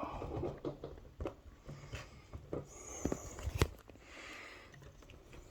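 Light clicks and handling noise from a key being worked in an elevator hoistway access key switch, with the sharpest click about three and a half seconds in.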